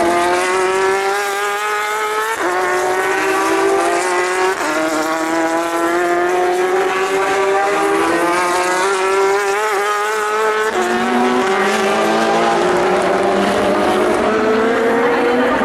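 Race car engine at full throttle, accelerating up through the gears: the engine note climbs steadily and drops sharply at each upshift, about every two to three seconds.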